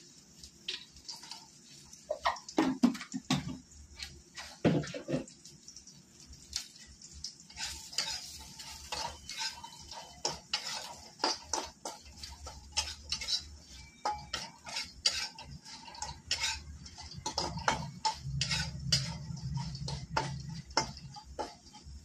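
Bori (sun-dried lentil dumplings) being fried and stirred in a wok: a spatula scrapes and clicks against the pan over and over. There are a few heavier knocks in the first few seconds as the dumplings are tipped in.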